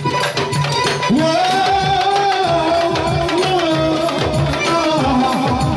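Live amplified manele music: a wavering, ornamented melody with singing over a steady drum beat.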